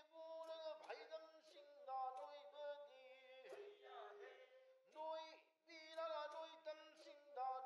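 Soft background music: a voice singing a slow melody, holding notes for half a second to a second with short breaks between phrases.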